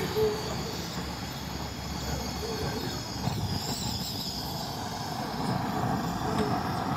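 Hand-held gas torch burning with a steady rushing hiss, its flame played on the end of a carbon-clogged exhaust pipe.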